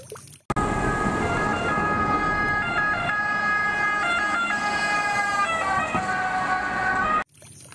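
Italian ambulance siren sounding as the ambulance drives past, with road and engine noise underneath. The siren's pitch drops slightly as it passes. The sound starts and cuts off abruptly.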